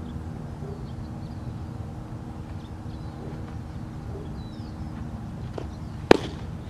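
A pitched baseball (a curveball) smacking into a catcher's mitt: one sharp pop near the end, over a steady low background hum with faint bird chirps.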